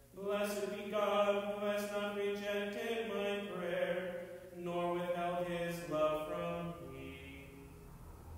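A lone man's voice chanting a psalm verse, holding steady notes on a reciting tone and stepping between a few pitches, then stopping about seven and a half seconds in.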